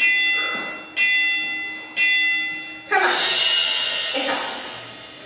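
Workout interval-timer chime counting down: three identical bell-like tones a second apart, each dying away, then a fuller, longer chime about three seconds in that marks the start of the exercise interval.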